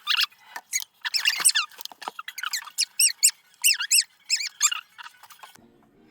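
A small pet's high-pitched squeaking calls: a fast series of short squeaks, each rising and falling in pitch. They stop about half a second before the end.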